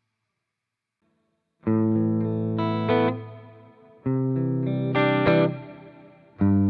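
Electric guitar played through a Playwell Tank-G multi-effects pedal on preset 8A. It starts silent, then three chords are struck about two and a half seconds apart, each ringing out with a quick higher-note accent.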